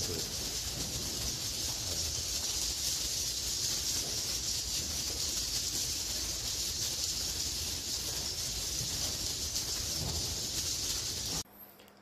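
Dense, steady high-pitched twittering hiss of many swiftlet calls filling a swiftlet house; it cuts off suddenly near the end.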